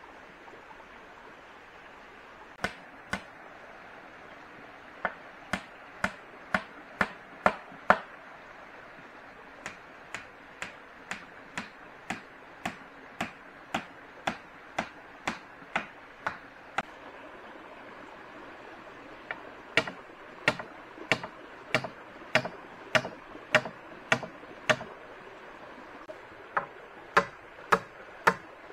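Sharp blows of a hand tool, chopping or driving, struck about two a second in runs with short pauses between, over a steady hiss.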